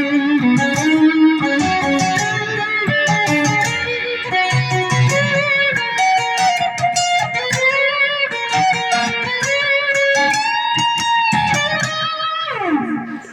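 Firefly FFST electric guitar with a Floyd Rose tremolo playing a quick run of picked lead notes. Near the end the notes slide steeply down in pitch, then the playing stops.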